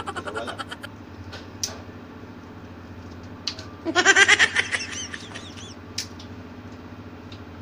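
Steady low machinery hum, with a few faint clicks as crab shells are cracked and picked apart by hand. About four seconds in, a loud, brief, high-pitched voice-like call rises and falls for about a second.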